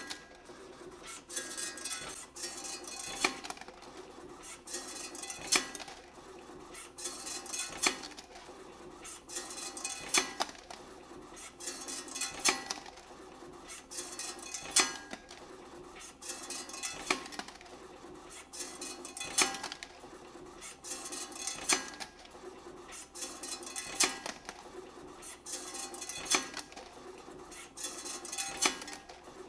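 CNC wire bending machine running production cycles, forming wire springs with a long hook: steady metallic clatter with a sharp clink about every two and a half seconds, one per formed part.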